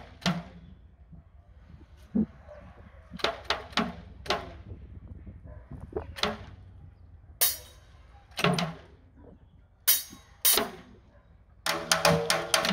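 Drumsticks striking a metal-shelled snare drum and a cymbal in scattered, irregular single hits, with a quick run of strokes near the end.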